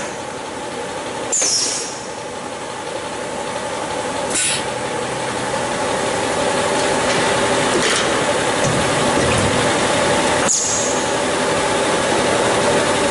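Jasu G45 injection stretch blow moulding machine running: a steady mechanical hum broken four times, about every three seconds, by a short sharp hiss of compressed air.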